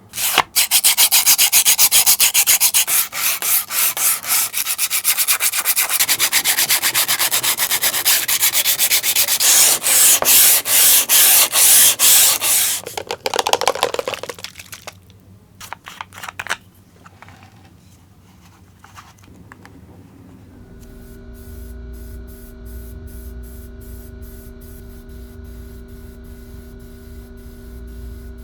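Sandpaper rubbed in fast back-and-forth strokes over the surface of a 3D-printed figure: a loud, scratchy, rhythmic rasp that slows and fades after about 13 seconds and stops around 16 seconds. A little past two-thirds of the way through, a steady motor hum with a few steady tones starts and runs on.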